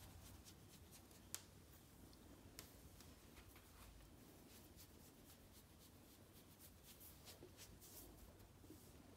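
Near silence: room tone with faint scattered clicks, one a little louder about a second and a half in.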